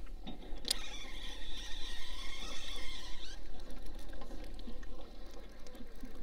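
A fishing reel: a sharp click, then the reel wound briskly with a steady whirr for about two and a half seconds, after which it goes on with only faint ticks.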